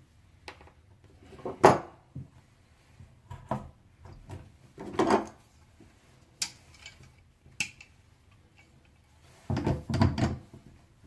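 Scattered knocks, clunks and sharp clicks of a replacement faucet valve being turned and pushed into the faucet body, the loudest clunk about two seconds in and a cluster near the end. The valve is not seating all the way down.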